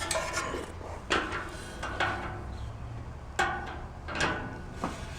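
A few light knocks and clinks of metal barbecue-grill parts and bolts being handled and fitted, about five separate taps spread over a few seconds, over a low steady hum.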